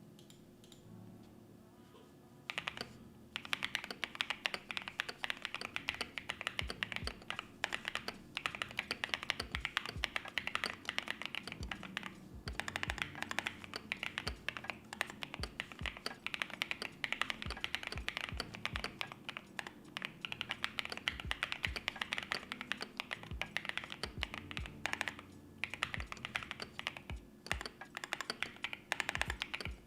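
Typing on a CMM Studio Isabell60 mechanical keyboard with JWK Carol switches on an aluminium plate: rapid continuous keystrokes starting about two and a half seconds in, with a few brief pauses.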